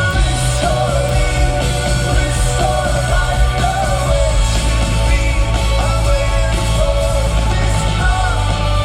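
Rock band playing live, loud and steady, with a voice singing over a heavy, constant bass.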